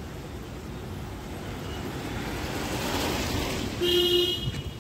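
A vehicle passing on a wet road, its tyre hiss swelling and fading around the middle, then a short horn beep about four seconds in, over steady rain noise.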